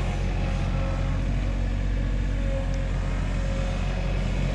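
Tractor engine running steadily with a constant low hum, holding an even pitch.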